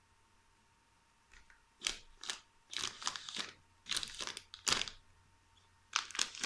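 A crinkly plastic snack bag rustling and crunching as it is pushed and rummaged, in a run of short, irregular bursts that start about a second and a half in.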